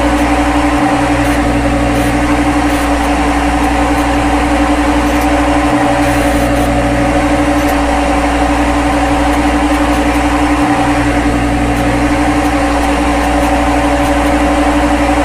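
Synthetic machine sound of a CNC lathe simulator with the spindle running: a steady hum with several held tones, which repeats in a loop about every five seconds.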